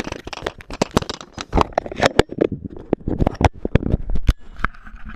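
Handling noise from the hand-held camera: a fast, irregular run of sharp clicks, knocks and rubbing as fingers move over the device.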